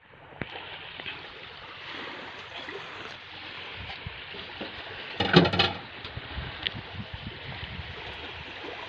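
Steady wash of shallow sea water and wind, with one short clatter about five seconds in.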